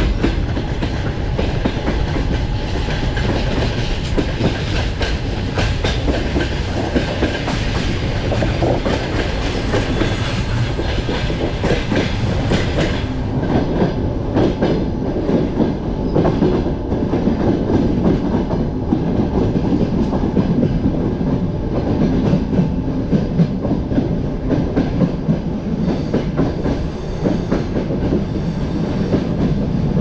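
Passenger train coach running along the track, its wheels clattering over the rail joints amid a steady rumble and rattle. The brighter hiss dulls about halfway through.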